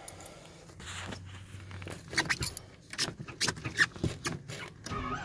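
Ignition keys jangling, with a run of sharp clicks and knocks in the cab of a Nissan 720 pickup.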